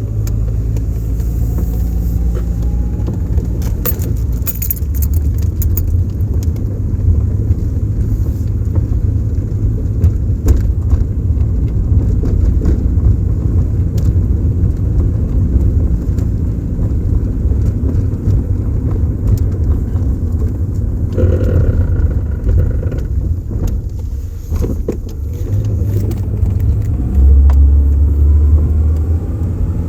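2011 Ford Ranger pickup driving: a steady engine and road rumble. The engine note rises as the truck accelerates, once at the start and again in the last few seconds. Brief light rattles sound about four seconds in.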